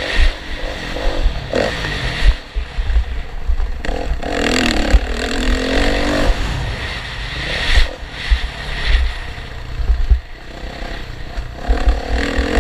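Motocross motorcycle engines revving, their pitch rising and falling as the bikes race.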